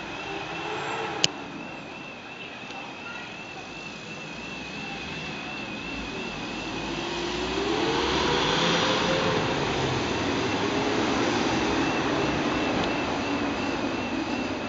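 Police van engine running as it pulls away along the street, growing louder about halfway through, its pitch slowly rising then falling. A high, thin warbling tone carries on behind it, and there is one sharp click about a second in.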